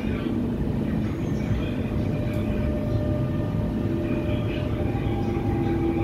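Alstom metro train heard from inside the passenger car as it pulls out of an underground station: a steady low rumble of wheels on rail with faint whining tones from the drive.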